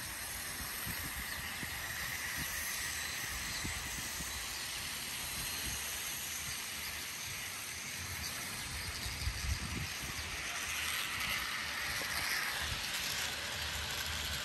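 HO scale model train with two diesel locomotives and 35 cars rolling along plastic track: a steady hissing rattle of many small wheels, a little louder for a few seconds near the end. Occasional low rumbles underneath.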